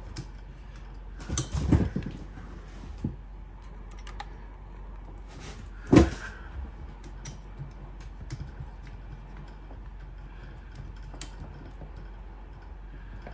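Small scattered clicks and taps of a hex driver and metal parts while the bolts of an RC helicopter's main rotor head are being tightened, with a cluster of knocks a couple of seconds in and one louder knock about six seconds in.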